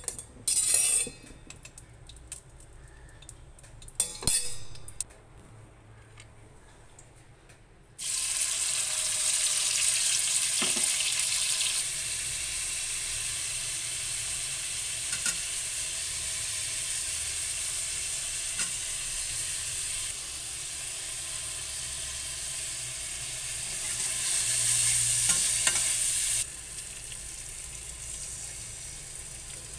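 Chopped onion, tomato and green chilli sizzling loudly in hot oil in a kadai, the hiss starting suddenly about a quarter of the way in and stirred with a metal spatula; it drops to a softer sizzle near the end. Before that, a couple of sharp clinks of utensils on the pan.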